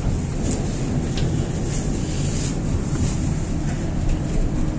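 Tatra T3 tram running along the track, heard from inside the car: a steady low rumble of wheels on rails, with a faint steady hum setting in a little past the middle.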